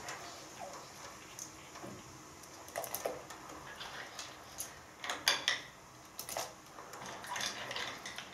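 Grape snail shells clicking and clattering against each other and the plate as they are picked up by the handful and dropped into a pot of water: scattered light knocks, with a louder cluster about five seconds in.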